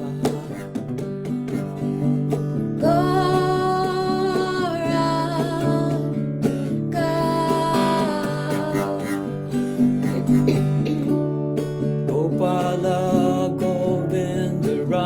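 Kirtan devotional music: instruments over a steady low drone, with a voice holding long sung notes twice.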